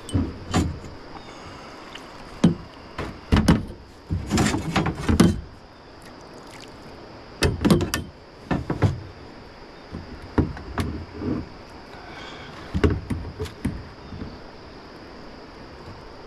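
Irregular bouts of knocks, thumps and scrapes against a hollow plastic kayak hull as a freshly caught smallmouth bass and the landing net are handled on board, with quiet gaps between.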